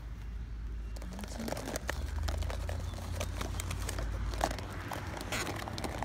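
Plastic acrylic paint tubes and their crinkly blister packaging rattling and rustling as they are rummaged through in a woven basket: an irregular run of clicks and crinkles over a low steady rumble.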